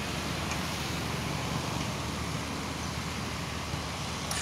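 Bajaj Avenger 220's single-cylinder engine idling steadily, breathing through a K&N free-flow air filter.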